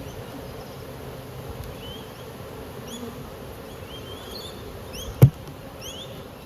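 Honey bees buzzing in a steady hum around an opened hive, with a single sharp knock about five seconds in.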